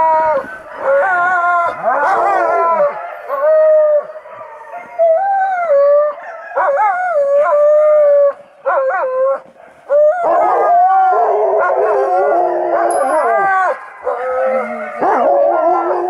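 Alaskan malamutes howling and whining, a near-continuous run of wavering calls that rise and fall in pitch, broken by short pauses. Several voices overlap at times, most in the second half.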